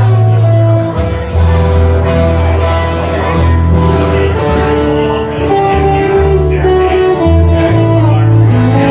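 Music with guitar and singing over held bass notes.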